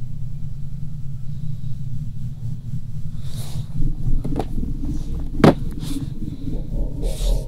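A low, steady rumbling drone with a few faint held tones, crossed by several breathy swishes and one sharp knock about halfway through.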